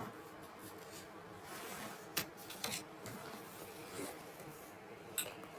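Faint rustling and handling noise with a few soft clicks, about two seconds in and again near the end.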